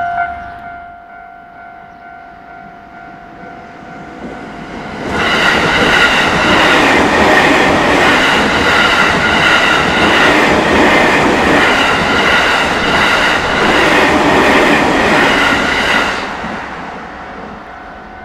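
A train passes over a Japanese railway level crossing for about eleven seconds, starting about five seconds in, with wheels clattering on the rails. The crossing's electronic warning bell rings, fainter early on, and is clear again after the train has passed.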